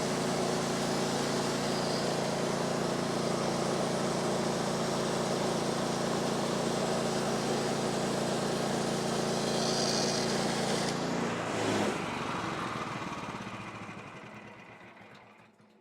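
Small gasoline engine of a portable bandsaw sawmill running steadily, then shut off about eleven seconds in and winding down to a stop over the next few seconds.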